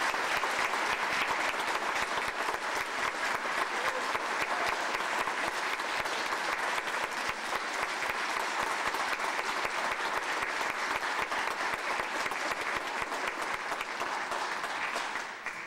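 Audience applauding steadily, the clapping cut off near the end.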